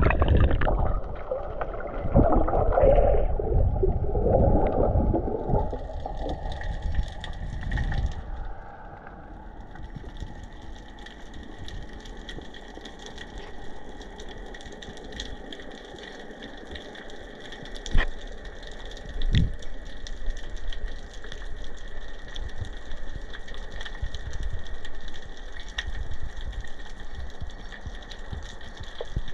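Water heard underwater: rough rushing and sloshing for the first several seconds, then a steadier muffled hiss with a few sharp clicks.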